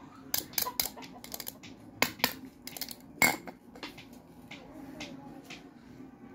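Sharp metallic clicks and clinks of a steel padlock and keys being handled and set down on a concrete floor. A quick run of clicks fills the first three seconds, the loudest comes about three seconds in, and a few fainter ticks follow.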